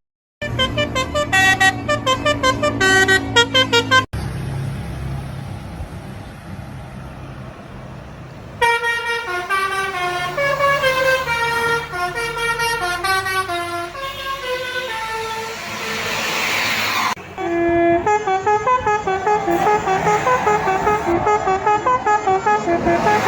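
Indonesian tour bus 'telolet basuri' melodic horns playing quick tunes of stepped notes, in several separate bursts cut together. About four seconds in the horn stops and a bus engine runs for a few seconds before the next horn tune starts.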